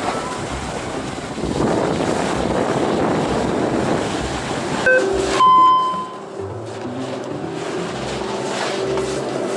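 Snowboard edge scraping and sliding over wet snow with wind rushing over the head-mounted action camera. About five seconds in there is a click and a short beep-like tone, after which the rushing eases to a lower steady hum.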